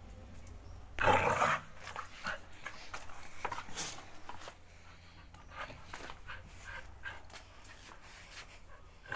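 Pit bull tugging and jerking on a bicycle tyre in a tug-of-war, with many small clicks and scrapes from its chain and the tyre. One louder rough sound comes about a second in.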